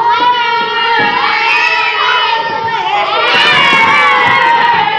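A crowd of children shouting and cheering, many voices overlapping.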